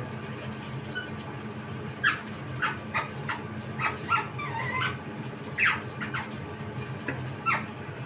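Rose-ringed parakeet drowsing with its head tucked, giving soft short chirps and squeaks, starting about two seconds in, with a little warbling run in the middle. A steady low hum runs underneath.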